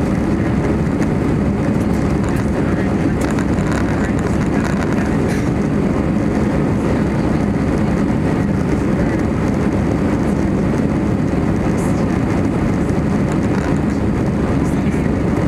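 Airbus A320-200 cabin noise during the climb after takeoff: the engines and the rush of air over the fuselage make a steady, deep, even rumble heard from a window seat inside the cabin.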